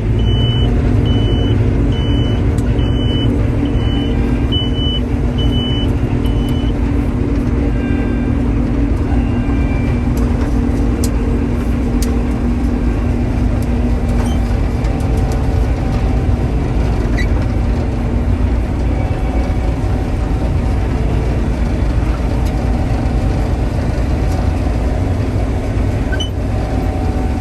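Combine harvester running at full throttle with the separator and header engaged, a steady drone of engine and threshing. A short high electronic beep repeats about every two-thirds of a second, then stops about six seconds in.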